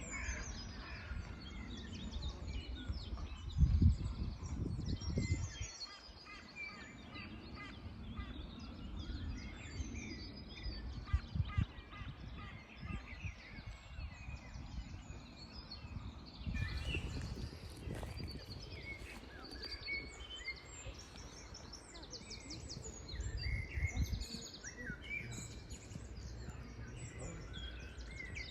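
Many small birds chirping and twittering in a continuous chorus of short, high calls. Low rumbles come and go under it, the loudest about four seconds in.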